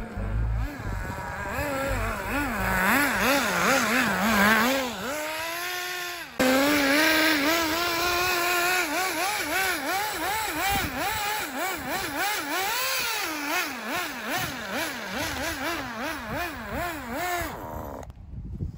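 Nitro RC drift car's small glow engine revving up and down in quick throttle blips, its pitch rising and falling several times a second. It gets suddenly louder about six seconds in and stops near the end.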